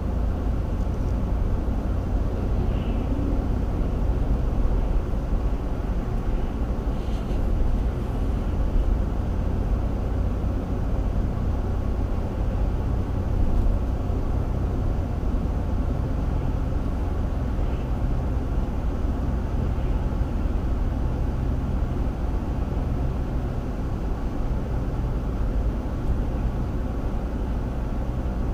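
Steady low rumble of a vehicle driving at road speed: tyre and engine noise with no clear changes.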